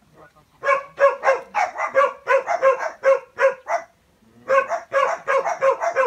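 A dog barking in quick repeated barks, about three a second, in two runs broken by a short pause about four seconds in.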